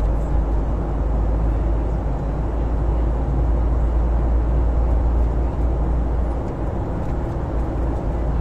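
Steady cabin noise of a passenger jet in flight: engine and airflow noise with a deep, constant rumble underneath.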